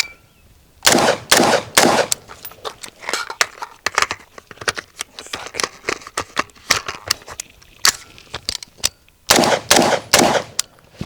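Gunshots fired in a timed rifle-and-pistol transition drill: three loud shots in quick succession about a second in, a run of weaker, irregular shots through the middle, and a second string of three or four quick shots near the end.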